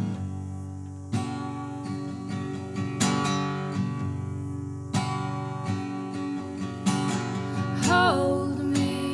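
Slow acoustic guitar song, with a chord strummed about every two seconds and a sung note coming in near the end.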